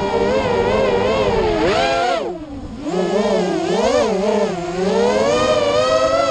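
Racing quadcopter's motors and propellers whining, the pitch rising and falling constantly with the throttle. A little over two seconds in, the whine drops off sharply for about half a second, then climbs back.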